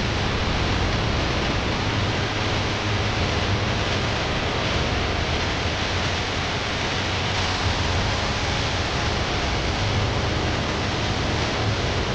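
Steady rushing noise with a low hum underneath, unchanging throughout: wind and engine noise aboard a large ship as it is eased alongside the berth.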